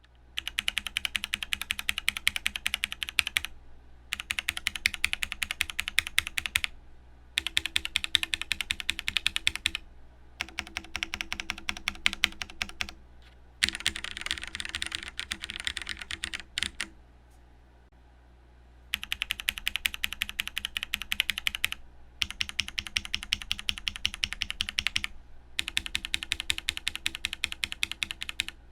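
Fast typing on a mechanical keyboard with Gateron Black linear switches, in bouts of about three seconds with short pauses between them and a longer pause a little past halfway.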